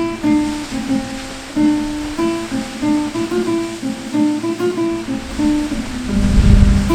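Relaxation music: a slow acoustic guitar melody of single picked notes over a steady rush of water.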